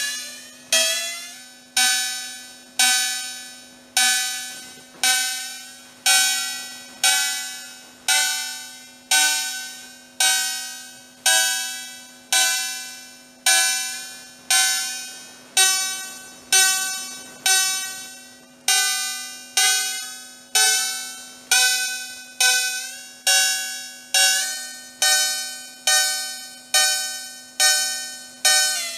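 Home-built electronic cowbell copied from the Roland TR-808 cowbell circuit (two square-wave oscillators through a band-pass filter), triggered about once a second. Each hit is a metallic, bell-like tone that dies away within about a second. Its pitch shifts from hit to hit as the oscillators are tuned, and a faint steady hum runs underneath.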